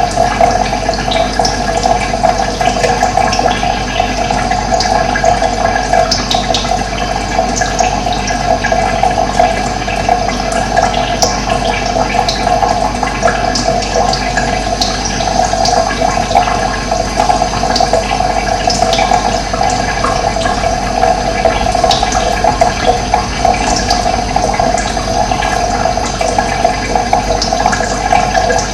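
Steady rushing of running water, with brief high bird chirps here and there over it.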